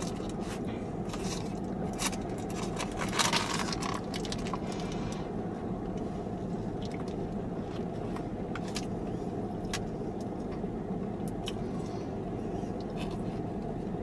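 Eating a breaded spicy chicken sandwich close up: crunchy bites, a paper wrapper crinkling and chewing, over a steady low hum. Most of the crunching and rustling comes in the first few seconds, with only scattered faint clicks after that.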